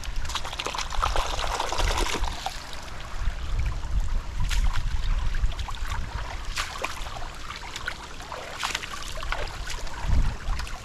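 Bare feet wading through shallow water: repeated splashes and trickling water, with a low rumble of wind on the microphone.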